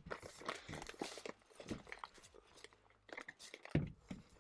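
Storage bin being shoved and handled under a bed: irregular scraping, rustling and knocks, with one louder thump near the end.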